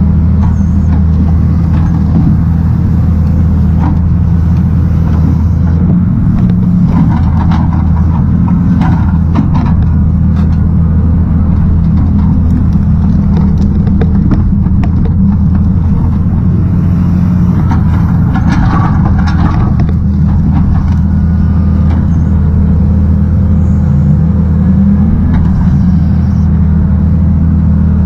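Engine of a hydraulic log loader running steadily under load as the grapple boom swings. Twice a higher rushing noise rises over it for a few seconds.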